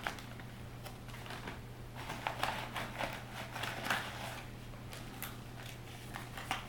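Faint rustling and crinkling of sealed gauze and bandage packets being handled and pulled from a first aid kit's case, in short irregular bits, over a steady low hum.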